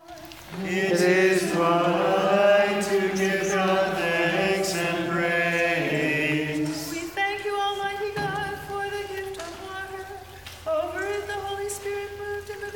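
Unaccompanied liturgical chant: a lower and a higher voice sing together on long held notes, then after about six seconds a single higher voice carries on alone.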